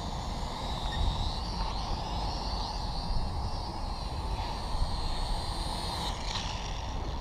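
Syma X5SW toy quadcopter's four small motors and propellers whining steadily in flight, the pitch wavering slightly, over a low rumble of wind on the microphone. The high whine fades about six seconds in.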